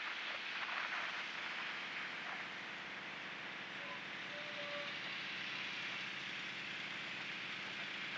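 Road traffic passing close by: cars and vans going past one after another, with a steady rush of tyre and engine noise.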